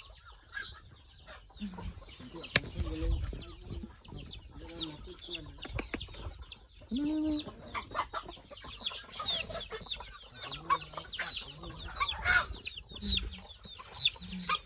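Chickens clucking while being fed, with many short, high calls repeating throughout. A sharp knock sounds about two and a half seconds in.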